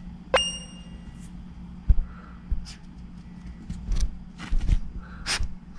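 A short ringing ping near the start, then scattered soft thumps and brief rustles as a toy poodle moves about on the floor, over a steady low hum.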